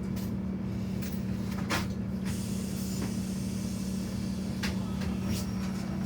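A vehicle's engine droning steadily, with a few sharp clicks or rattles over it.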